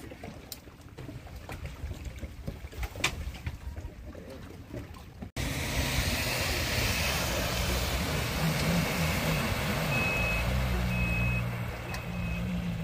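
Quiet kayak paddling sounds: water noise with a few sharp knocks. After a sudden cut, a vehicle engine runs and, about two-thirds of the way in, a reversing alarm starts beeping about once a second.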